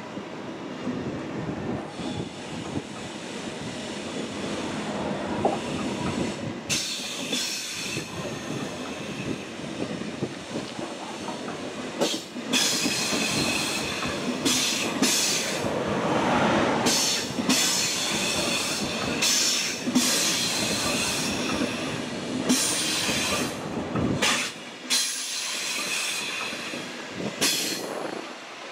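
A Deutsche Bahn ICE high-speed electric train rolling past along the platform: a steady rumble of the cars with repeated bursts of high wheel squeal and clicks over the rail joints, the low rumble falling away near the end.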